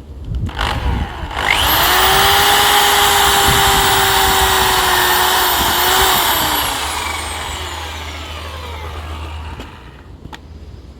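Electric power tool motor spinning up with a rising whine, running at full speed for about four seconds, then coasting down with a falling pitch over about three seconds.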